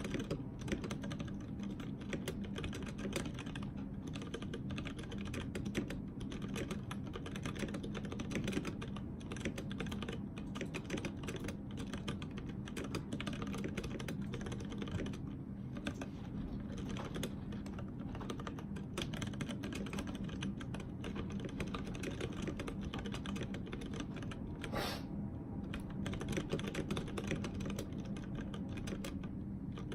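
Continuous fast typing on a Tada68 mechanical keyboard with Outemu Ergo Clear switches and GMK white-on-black keycaps: a dense, steady stream of keystroke clacks, with one louder stroke about 25 seconds in.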